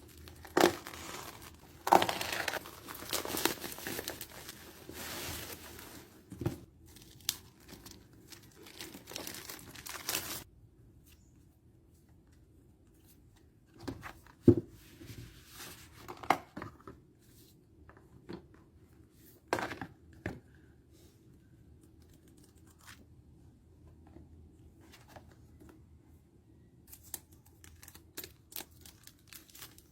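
Packaging being torn open and crinkled by hand, a dense rustling for about the first ten seconds. After that come scattered short rustles and light clicks as the items are handled.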